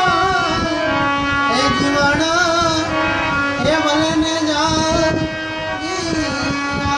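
Devotional bhajan music: an ornamented melody with gliding, wavering pitch over a steady held drone, with drum beats running underneath.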